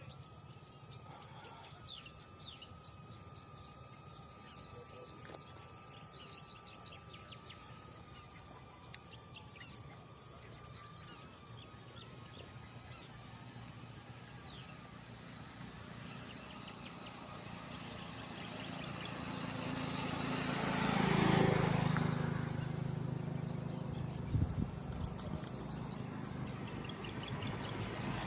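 Rural roadside ambience: insects buzzing steadily at a high pitch, with scattered bird chirps. About three-quarters of the way through, a vehicle passes, rising to the loudest point and then fading.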